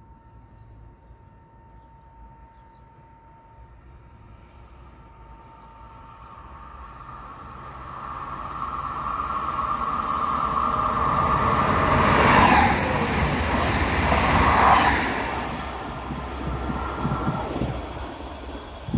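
A train approaching and passing through the station: the rumble of wheels on rail grows louder over about ten seconds, is loudest about two-thirds of the way in, then fades.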